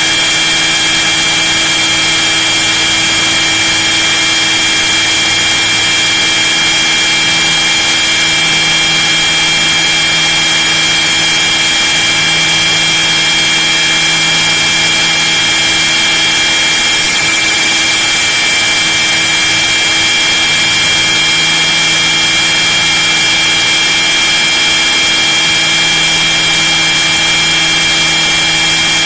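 Radio-controlled scale model helicopter running in flight, heard from inside its own cabin: a loud, steady mechanical whine with several high tones held constant over a rushing noise.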